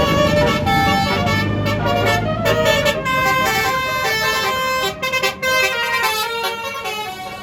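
Tour bus's multi-tone basuri telolet horn playing a quick tune of changing notes, over the bus's engine; the sound fades near the end as the bus moves off.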